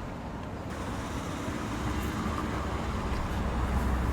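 Steady low rumble of a motor vehicle, slowly growing louder.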